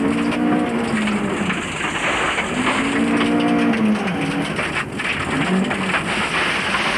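Rally car engine heard from inside the cabin, its pitch rising and falling several times as the driver accelerates and backs off, over a steady hiss and patter of gravel thrown against the underbody.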